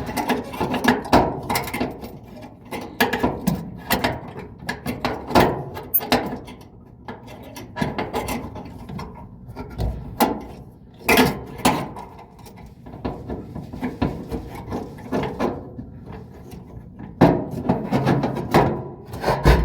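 Irregular clicks, knocks and scraping of hand work on the dryer's idler pulley assembly: parts and tools being handled and fitted, with a few sharper knocks.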